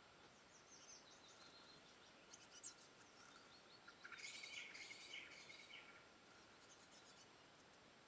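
Faint songbird song: scattered high chirps, then a fast, busy run of notes about four seconds in that lasts some two seconds.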